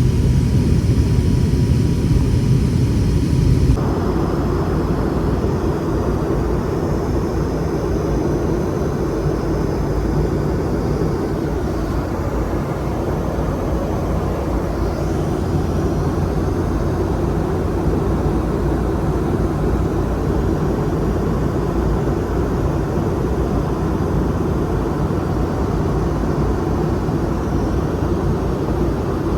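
Cabin noise inside a Boeing 717-200 whose rear-mounted Rolls-Royce BR715 engines are running: a steady rushing sound. About four seconds in it changes abruptly, from a lower hum with a few high steady tones to a fuller, even rush.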